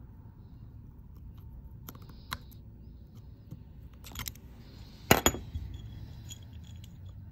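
A few sharp clicks and taps of small hard objects handled on a workbench, the loudest a quick double tap a little past the middle.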